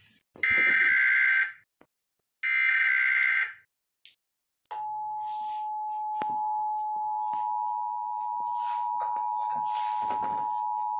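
Emergency Alert System tones. Two bursts of SAME header data tones, each about a second long, give a warbling screech. After a pause of about a second, the steady two-tone EAS attention signal (853 and 960 Hz sounded together) starts about five seconds in.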